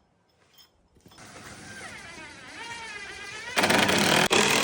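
An electric motor winds up with a wavering whine, then runs loud and rough from about three and a half seconds in, cutting out for an instant once. It sounds terrible, a sign of a faulty electrical connection where the parts join.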